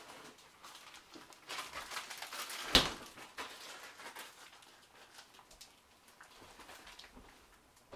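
Faint crackle of egg and bread frying in a cast-iron skillet, with a louder stretch and one sharp knock about three seconds in.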